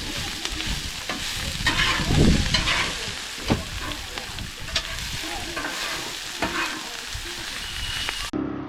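Food sizzling in a pot while it is stirred, with occasional sharp clicks of a utensil against the pot. The sizzling cuts off suddenly near the end.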